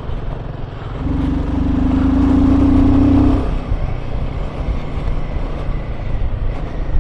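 Royal Enfield Himalayan 450's single-cylinder engine running under throttle while riding, with wind and road noise. The engine note swells louder for about two seconds starting about a second in, then eases back.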